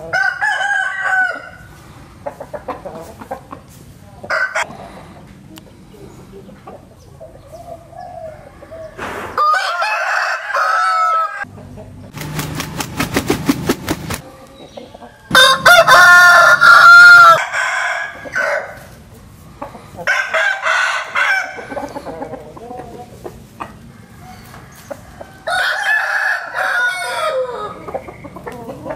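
Rooster crowing five times, each crow lasting one to two seconds, the loudest in the middle. A rapid run of flutters, like wings flapping, comes between the second and third crows.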